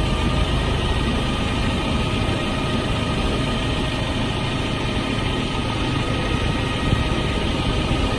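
Engine of a large marina boat forklift running steadily while it carries a boat on its forks, with a faint thin steady whine over the engine noise.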